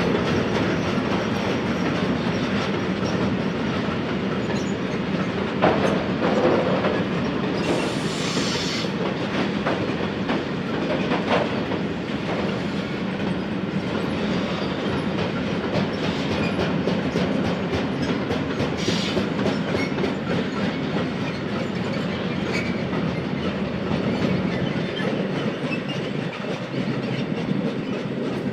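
Train rolling through a rail yard with a steady rumble and a dense clickety-clack of wheels over rail joints and points. Two short, higher bursts of noise come about a third and two-thirds of the way through.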